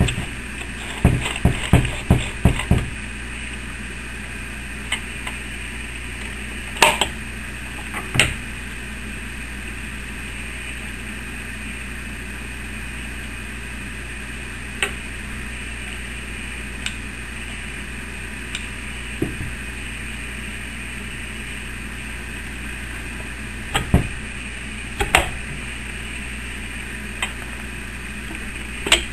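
Sewing machine stitching a multitool sheath: a quick run of six or seven sharp stitch knocks, followed by scattered single knocks and clicks over a steady background hum.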